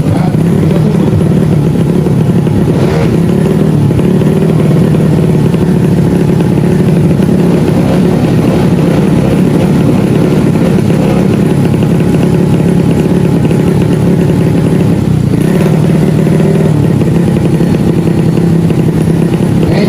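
Tuned motorcycle or scooter engine running loud and steady at a nearly constant pitch, with a slight change in its note about fifteen seconds in.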